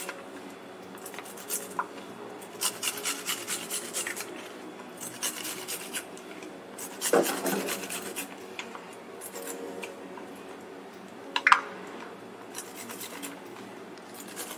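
Garlic being grated on a flat steel hand grater over a plastic chopping board: runs of quick rasping strokes, broken by pauses, with a couple of louder knocks, one about halfway through and one near the end.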